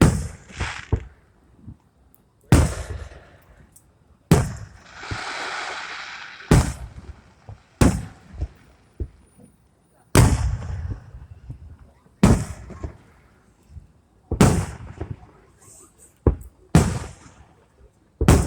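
Fireworks going off in a show: about a dozen sharp booms spaced roughly two seconds apart, each trailing off in crackle, with a longer fizzing crackle between about four and seven seconds in.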